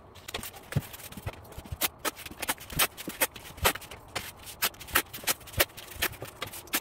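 Paper masking tape being pulled off its roll and pressed along the edges of a cardboard box: a quick, irregular run of crackles and ticks.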